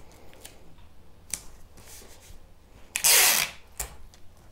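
Clear sticky tape (Sellotape) being pulled off its roll with a short rasp about three seconds in, amid soft rubbing and light taps as hands press the tape down onto paper pattern sheets.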